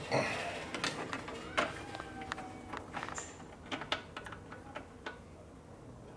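Irregular metallic clicks and clinks of hand tools working a fastener on a motorcycle's front-end parts, with a few brief ringing tones from struck metal; the loudest knock comes about a second and a half in.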